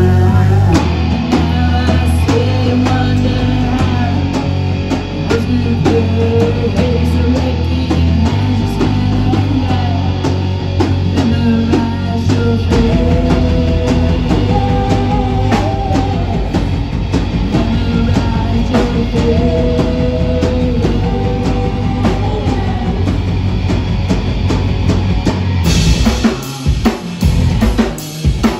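Rock band playing live: drum kit, bass and guitar, with the guitar holding long melodic lines over the drums. About thirteen seconds in the low end turns to a fast, even pulse, and near the end the playing breaks into short stop-start hits.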